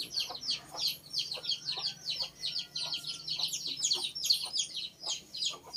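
Small birds chirping in a fast, unbroken string of short, high, falling chirps, several a second.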